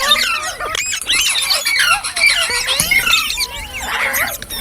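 Green parrot chirping and squawking: a rapid run of high calls that rise and fall in pitch and overlap one another.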